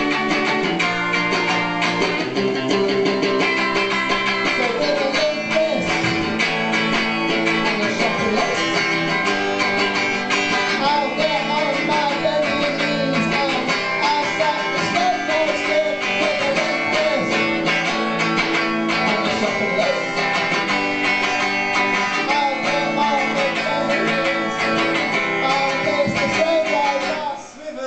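Guitar music with strummed and plucked strings, steady throughout.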